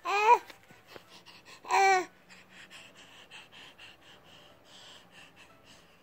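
A nine-month-old baby vocalizing: two short, high-pitched squeals, one at the start and one about two seconds in, then a run of soft, breathy, wheezy huffs.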